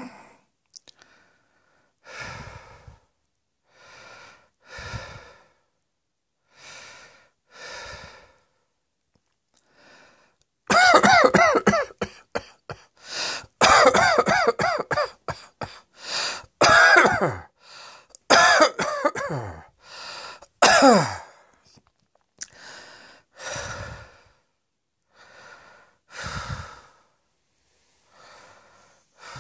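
A person coughing. Single coughs come every second or two at first, then a loud, long coughing fit runs through the middle, and single coughs follow again near the end.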